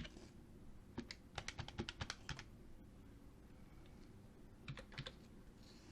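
Faint computer keyboard typing: a run of quick key clicks about a second in, and a few more near the end.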